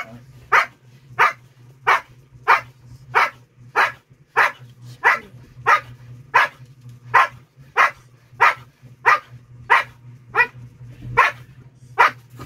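Siberian husky barking on command: about twenty short barks in a steady rhythm, roughly one every two-thirds of a second.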